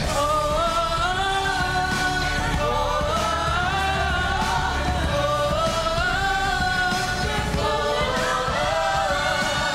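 Four-voice vocal group singing in harmony over instrumental backing, with long held notes that slide and bend between pitches.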